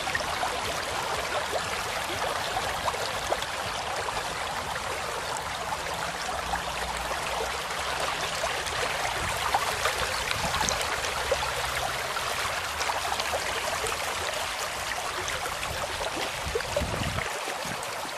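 Shallow stream flowing briskly over stones and pebbles: a steady babble of running water.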